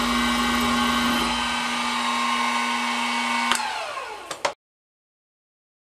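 Grizzly G0704 milling machine's spindle motor running steadily while drilling a steel plate. About three and a half seconds in there is a click and the motor winds down with a falling whine, then a couple of small clicks before the sound cuts off abruptly.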